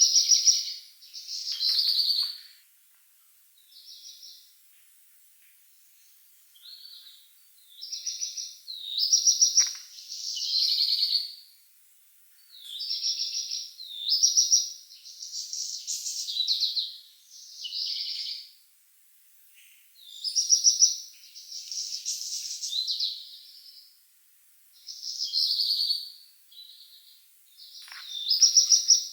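Birdsong at night: a string of short, high, trilled phrases about a second long, following one another with short pauses between.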